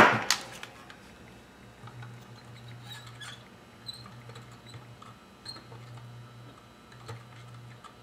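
Weller transformer soldering gun humming low and steady while its trigger is held, with a few short breaks, as it melts solder into an XT90 connector's solder cup to tin it. Faint ticks and clicks sound over the hum.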